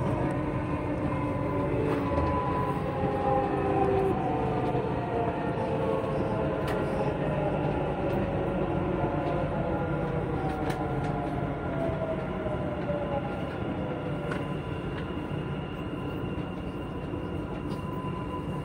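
Dubai Metro train running, heard from inside the carriage: a steady rumble with a motor whine that slowly falls in pitch as the train slows.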